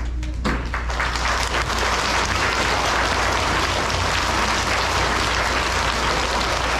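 School assembly audience applauding, a dense, steady clapping that swells in about half a second in and keeps up at an even level.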